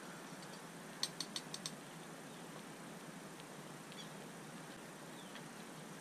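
Quiet outdoor ambience: a steady faint hiss with a few faint high chirps, and a quick run of five sharp clicks about a second in.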